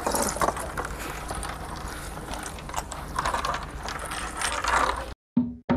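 Fishing boat's engine running with a steady low hum and a dense mechanical rattle; it cuts off suddenly about five seconds in.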